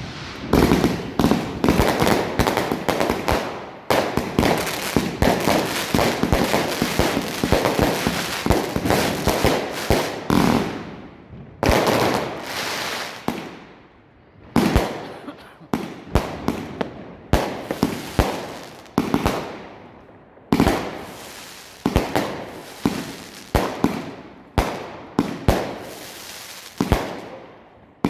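Klasek compound firework cake, 20 mm and 30 mm tubes, firing: about ten seconds of densely packed shots and bursts, a short lull, then a steady run of single shots at about three every two seconds, each with a fading tail.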